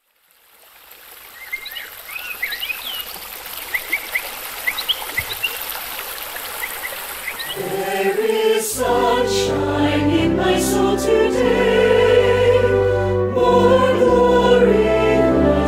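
A trickling stream with birds chirping fades in. About eight seconds in, orchestral music with a choir comes in and takes over.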